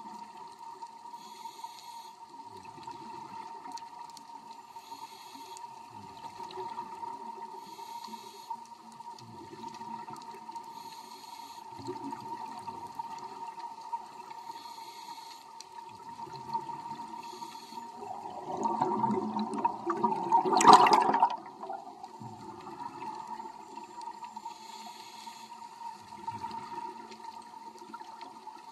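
Underwater recording of scuba divers' exhaled regulator bubbles: soft gurgling and hissing over a steady hum, with a louder rush of bubbles building from about 18 seconds in and ending sharply a few seconds later.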